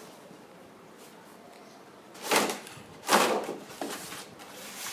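A toy set's cardboard box being opened by hand: two loud scraping, tearing rustles about a second apart, a little over two seconds in, followed by smaller handling rustles.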